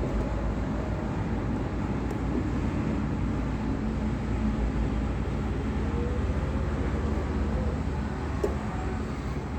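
Steady low rumble and hum of background noise, with one small click about eight and a half seconds in.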